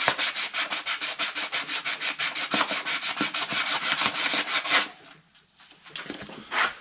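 Rapid back-and-forth hand scrubbing on the metal crankshaft end where the flywheel mounts, cleaning up the mounting surface. The strokes come about six or seven a second and stop about five seconds in, with one last stroke near the end.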